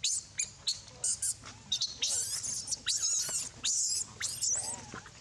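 Baby monkey squealing: short, very high squeaks in quick succession, then from about two seconds in a longer run of wavering, warbling screams that die away near the end.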